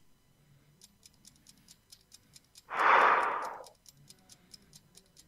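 Quiz countdown-timer sound effect ticking like a clock, about four ticks a second, running the contestant's answer time. About halfway through, a loud breathy rush of noise lasting about a second sits over the ticking.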